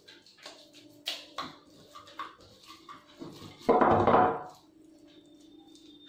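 Hands working oil into a soft ball of pizza dough, making a string of small sticky clicks and taps. About two-thirds of the way through comes a louder noise lasting under a second.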